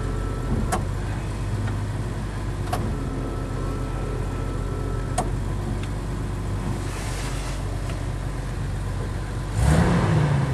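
Jeep YJ plow truck's engine idling steadily, heard from inside the cab, a few minutes after a cold start. Three faint clicks come through early on, and about a second before the end a louder rumble comes in.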